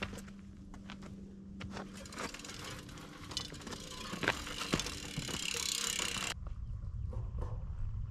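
Bicycle rear freehub ticking as the wheel rolls without pedalling, with scattered clicks and rattles. About six seconds in it changes abruptly to a low wind rumble on the microphone.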